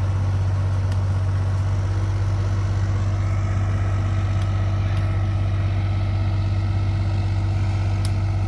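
Truck engine idling steadily, with a few faint short clicks.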